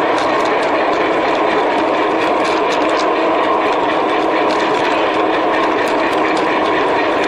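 Model train running along its track, heard from on board: a steady running noise of motor and wheels on rail, with faint irregular clicks.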